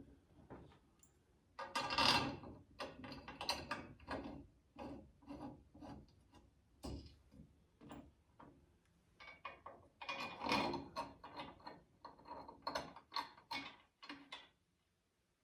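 Metal parts of a chain grinder stand clinking and rattling as the lower section is fitted into the base and the mounting hardware is started by hand: irregular clicks and knocks, with louder clatters about two seconds in and again around ten seconds in, stopping abruptly near the end.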